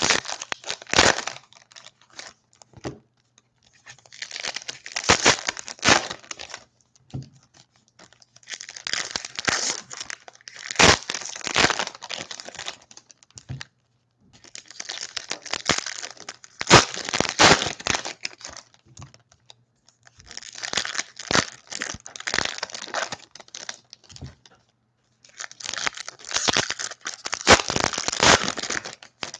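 Foil trading-card pack wrappers being torn open and crinkled by hand, one pack after another, in about six separate crackly bursts with short pauses between them.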